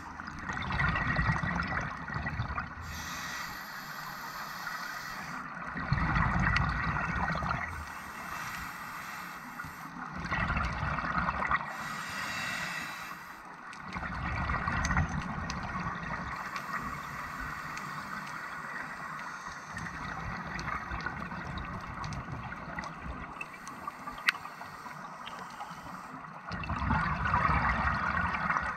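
A scuba diver breathing through a regulator, heard underwater: each breath is a short hiss of inhalation followed by a louder gurgling rush of exhaled bubbles. The breaths repeat every four to five seconds, with a quieter stretch in the middle.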